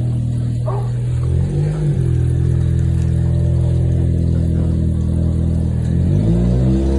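Oil furnace burner and blower running with a steady low hum. Its pitch wavers briefly about a second and a half in and again near the end.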